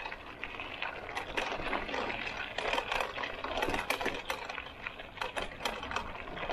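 Bicycle tyres rolling over a gravel and dirt path: a dense, irregular crunching and crackling of small stones.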